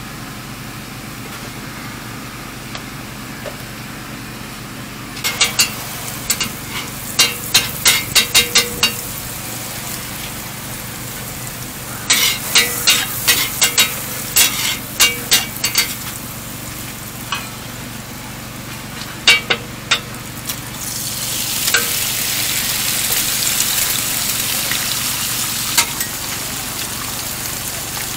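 Egg frying on a hot flat steel griddle, with a steady sizzle throughout. A metal spatula clicks and scrapes rapidly against the plate in two spells, about a fifth of the way in and again near the middle. The sizzle grows louder about three-quarters of the way through.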